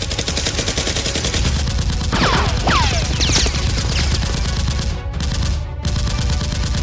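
Rapid automatic gunfire over background music with a steady bass, with a few falling whistling sweeps about two to three seconds in. The sound cuts out briefly twice after about five seconds.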